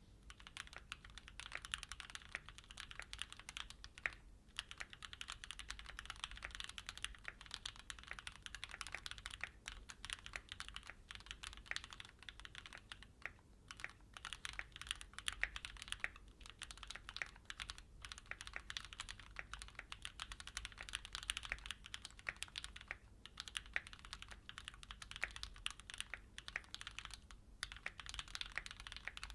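Fast continuous typing on a Keychron Q6 full-size mechanical keyboard: a dense run of key clicks with a few short pauses, about four seconds in, near the middle and again about two-thirds through.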